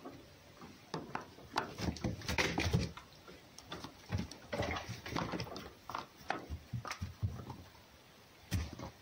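A red fox and a cat play-fighting: scuffling, with a rapid, irregular run of knocks and thumps against a wooden board, then one last knock near the end.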